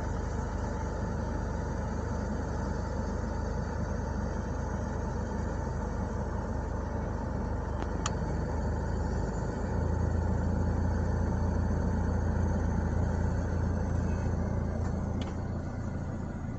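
Toyota Innova Reborn's AC blower motor running at low fan speed: a steady whir with a low hum that gets a little louder about ten seconds in. This slight spinning noise is normal for this type of blower, according to the mechanic.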